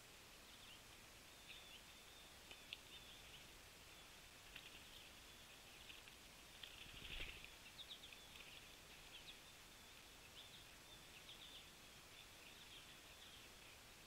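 Faint chips and short call notes of small wild songbirds around the feeders, many brief high notes scattered throughout and busiest in the middle. A soft low thump or flutter comes about seven seconds in.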